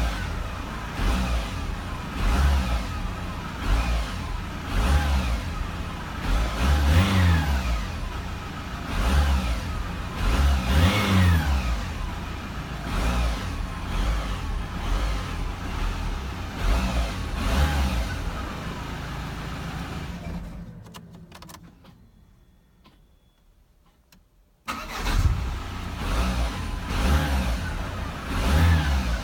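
Audi B7 2.0 TDI four-cylinder diesel engine running, revved up and back down twice. It then winds down to silence when switched off, and comes back running suddenly a few seconds later.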